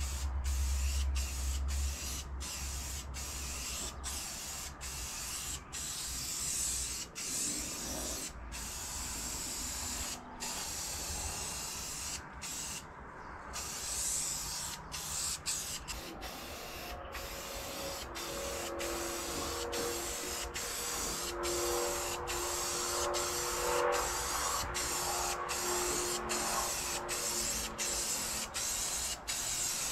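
Aerosol can of matte black spray paint hissing as it is sprayed in repeated passes. The hiss is broken by brief gaps about once a second, with a longer pause about halfway through.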